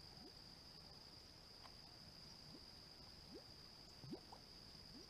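Faint steady high-pitched insect chorus, with a few faint short rising sounds scattered through it.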